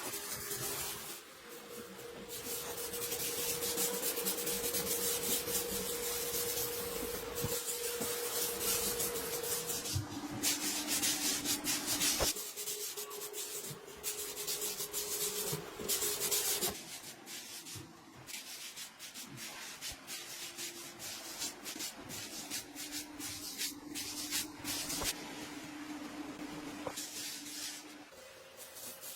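Continuous scraping, sanding-like noise with a steady motor hum underneath, whose pitch drops and rises again several times.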